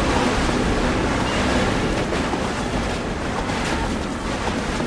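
LEGO City 60337 Express Passenger Train running at top speed around its plastic track: a steady rushing noise with a few faint clicks.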